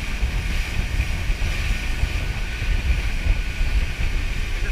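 Engine running steadily under way, with a heavy wind rumble on the microphone.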